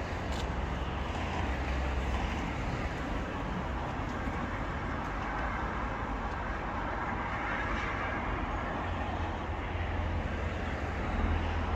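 Steady rush of road traffic going by, an even wash of tyre and engine noise with a deep low rumble that grows stronger near the end.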